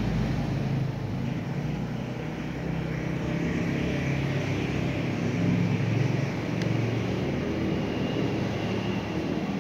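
Domestic cat purring close to the microphone while it grooms: a steady low rumble that swells and eases every second or two.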